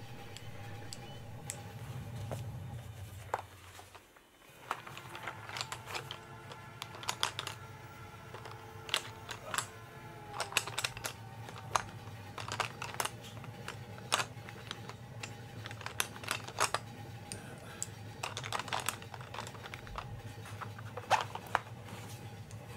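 Coloured pencils being handled and drawn on a sketchbook page: irregular sharp clicks and taps, thicker from about five seconds in, over a steady low train rumble that briefly drops away near four seconds.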